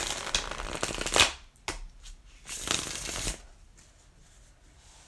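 Tarot cards being shuffled by hand, a dry riffling rustle in several bursts, the longest at the start, then stopping after about three and a half seconds.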